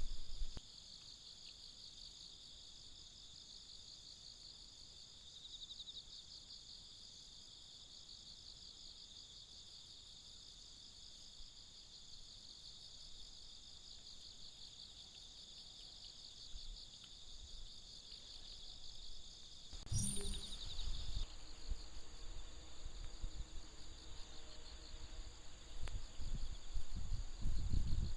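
Steady high-pitched chirring of insects. About twenty seconds in there is a brief knock, and low rumbling noise grows louder toward the end.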